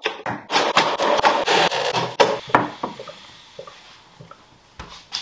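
Hot-water dispenser pumping hot water into a glass, with sputtering and rapid irregular clicks for about three seconds, then a few light knocks and clinks.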